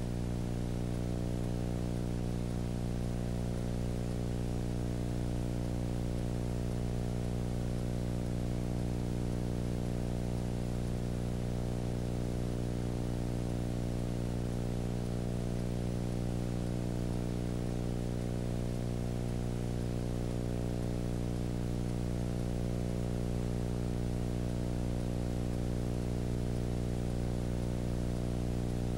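Steady electrical hum with a layer of hiss, unchanging throughout, with no programme sound over it.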